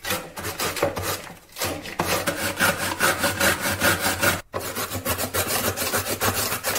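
Cabbage and carrot pushed back and forth over the steel blade of a plastic mandoline slicer, shredding in quick repeated strokes, about four a second, with two short breaks.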